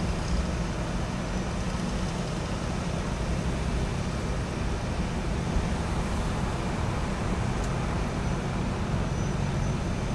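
Steady low rumble of road traffic and running vehicle engines, with no sharp events.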